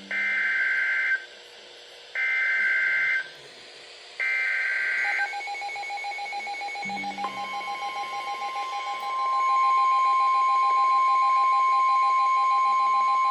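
Emergency Alert System SAME data header: three shrill, buzzing bursts of digital data, each about a second long and two seconds apart, marking the start of a new alert. They are followed by a long, steady attention tone that comes in about seven seconds in and gets louder about two seconds later.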